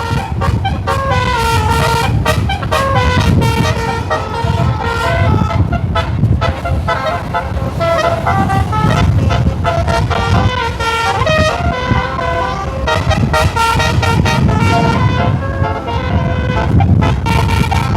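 A bus's telolet musical horn plays a melody of stepped notes, with the bus engine and road noise rumbling underneath.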